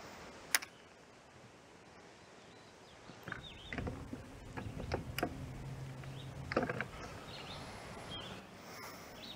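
A small electric motor hums low and steady for about three seconds, amid a sharp click about half a second in and several clicks and knocks in the middle. Birds chirp faintly in the background.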